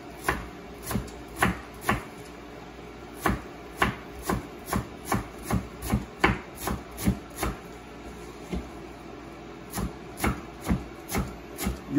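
Kitchen knife chopping fresh cilantro on a plastic cutting board. The blade strikes the board in short, sharp taps about twice a second at an uneven pace, with a brief lull about two-thirds of the way through.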